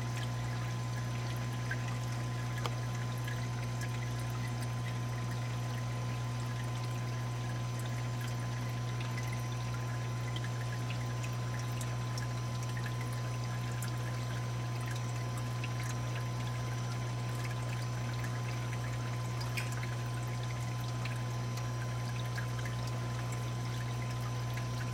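Water pouring and trickling steadily in a saltwater aquarium's refugium sump, over a steady low hum.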